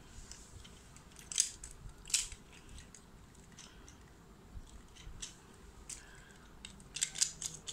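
Scattered sharp plastic clicks and clacks from handling a plastic Beyblade top and its launcher: two louder ones about a second and a half and two seconds in, a few single ones later, and a quick run of clicks near the end.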